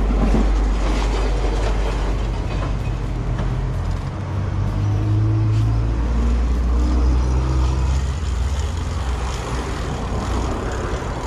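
Low rumble of a motor vehicle engine passing close by on the street, its note strongest about four seconds in and easing off near the end.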